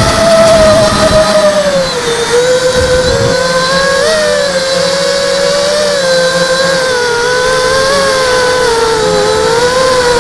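Brushless motors and propellers of a small ZMR hexacopter whining in flight, heard from on board, the pitch dropping about two seconds in and then wavering up and down as the throttle changes.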